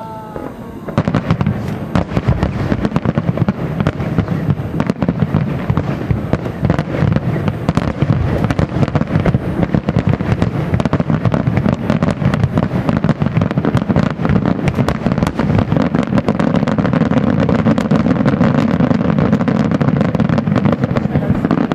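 Aerial firework shells bursting in a rapid, continuous barrage: dense overlapping bangs and crackles begin suddenly about a second in and keep going without a pause.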